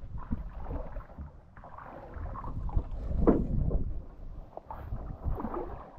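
Sea water slapping and splashing against the hull of a wooden fishing boat, with wind buffeting the microphone.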